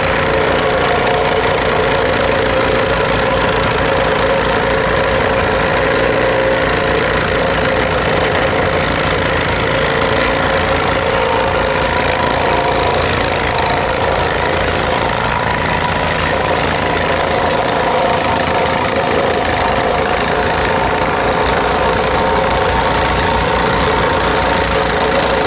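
Honda GX270 gas engine running steadily on a Wacker Neuson DPU 5045 reversible plate compactor, with the plate vibrating against asphalt in a fast, even pulse as the machine is walked across the pavement. The GX270 replaces the compactor's original diesel engine.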